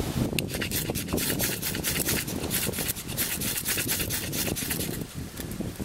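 Knife spine scraped hard and fast down a ferrocerium rod, a quick run of rasping strikes throwing sparks onto tinder to light a fire. The strikes come thick at first and thin out in the last couple of seconds.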